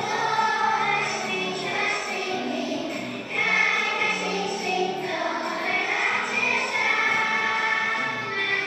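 A class of young children singing together in unison with a musical accompaniment, the singing getting louder about a third of the way in.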